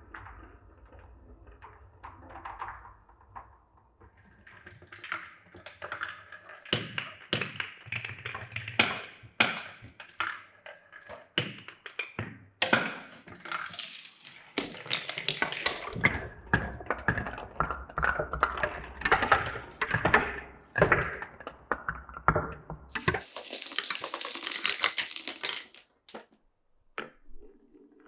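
Glass marbles rolling and clacking along a wooden marble run: a string of sharp clicks and knocks, then a long busy stretch of rolling and rattling. Near the end comes a brief high rushing hiss that cuts off suddenly.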